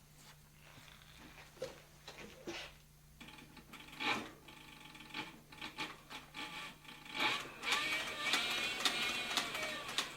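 Cowboy CB4500 walking-foot harness stitcher sewing leather, with scattered clicks at first, then running faster and louder from about seven seconds in, over a low steady hum.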